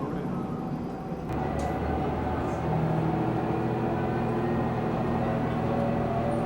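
Diesel trolley train running along the line, its engine hum and rail noise steady, stepping up in level about a second in. It cuts off suddenly at the end.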